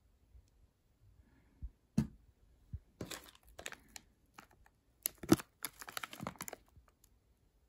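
Plastic snack wrapper crinkling as it is handled and torn open, in two spells of rustling about three and five seconds in. A single knock sounds about two seconds in.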